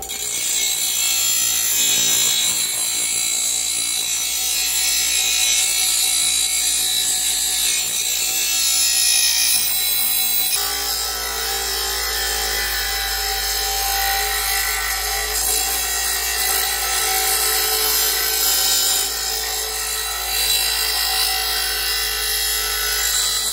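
Porter-Cable bench grinder running with its wheel grinding the steel edge of a lawn mower blade, a steady gritty rasp over the motor's hum as the blade is sharpened.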